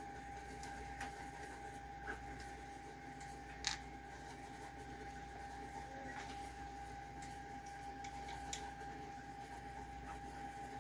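A few faint clicks and taps of small hex screws and an Allen key being handled while a printer's transport plates are unscrewed. A steady faint high whine and low hum run underneath.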